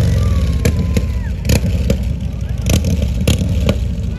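Motorcycle engine running steadily at low revs, with a few sharp clicks.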